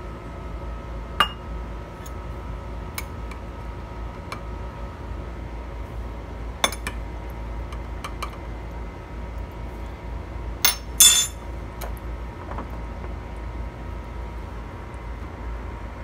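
Metal spoon clinking against glass jars as sugar is scooped from a glass jar and tipped into a glass blender jar: scattered sharp clinks, the loudest a ringing pair about eleven seconds in.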